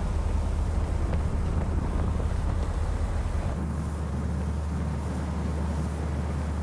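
Steady low drone of an old trawler's engine running at sea, with wind rushing on the microphone. The deepest part of the drone drops away about three and a half seconds in.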